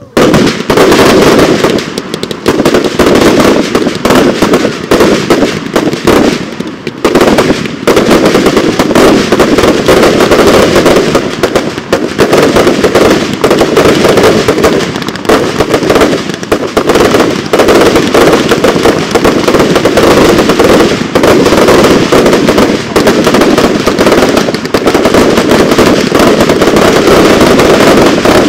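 Fireworks salute finale: a dense, nearly continuous barrage of loud salute bangs, with a short lull about seven seconds in.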